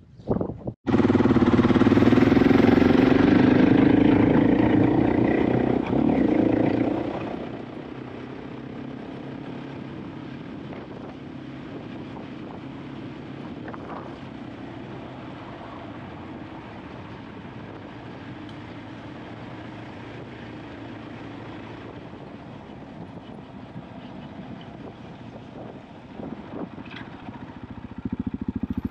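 KTM 500 EXC-F single-cylinder four-stroke enduro engine pulling hard for about six seconds, then dropping to a much quieter steady run, and picking up again near the end.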